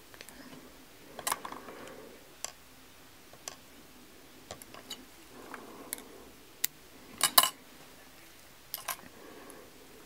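Small fly-tying scissors snipping thread and fly materials: a series of sharp, irregularly spaced snips, the loudest a quick double snip about seven seconds in, with soft rustling of fingers handling the fly between them.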